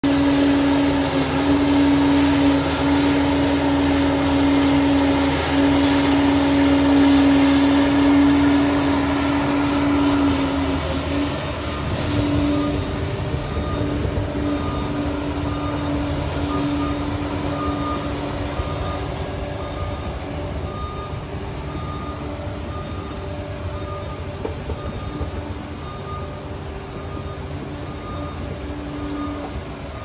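Liebherr PR 746 crawler dozer's diesel engine and hydrostatic drive running under load, with a steady whine, as it pushes soil. About midway a regular beeping starts and the machine grows fainter as it backs away.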